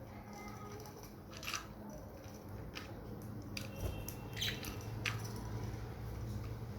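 Pet budgerigars making a handful of short, sharp chirps and clicks, scattered about a second apart, over a steady low hum.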